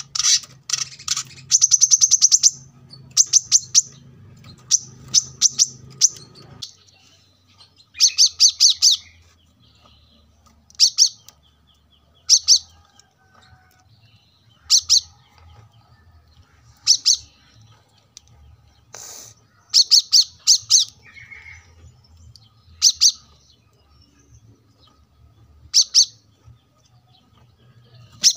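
Male brown-throated sunbird singing: short bursts of high, rapid chirping notes every one to three seconds, with a fast trill about two seconds in.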